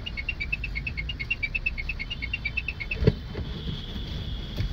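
Car moving slowly through a multi-storey car park, with a low rumble of engine and tyres. Rapid high-pitched chirping runs at about seven chirps a second, alternating between two close pitches, and stops about three seconds in with a thump. A steady high tone follows.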